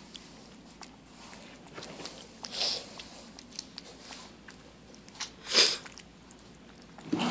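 Domestic cat eating chicken noodle soup from a bowl: soft, wet chewing and mouth clicks on the noodles, with two louder short breathy noises about two and a half and five and a half seconds in.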